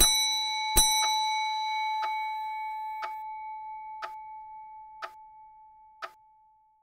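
A clock's bell struck twice, less than a second apart, marking a quarter minute on the count-up timer. Its ringing dies away slowly over about six seconds, while the clock ticks once a second.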